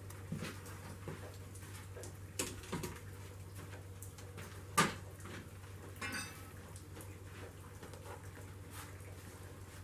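Scattered metal clanks and clinks as a melting furnace's lid and metal tools are handled, the loudest single clank about five seconds in, over a low steady hum.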